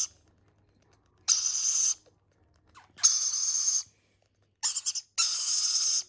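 Baby rainbow lorikeets giving harsh, rasping food-begging calls while being spoon-fed formula. There are four calls, each under a second long, and the third is broken into quick stutters.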